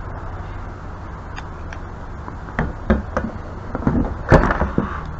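Handled tools and pipe fittings knocking and clattering, a cluster of sharp knocks in the second half with the loudest about four seconds in, over a steady low hum.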